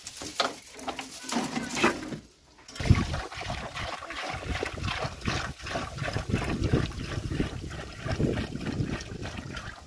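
Water pouring from a plastic jerrycan into a black cooking pot, a continuous splashing that starts about three seconds in, after a few scuffs and knocks.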